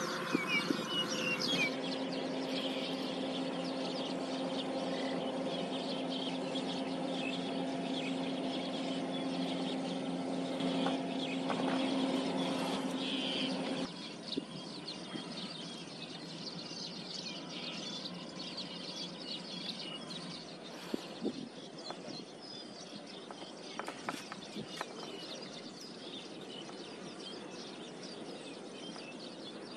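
A steady engine drone holding one pitch, which cuts off abruptly about halfway through. Quieter outdoor background noise follows, with occasional bird chirps and a few faint clicks.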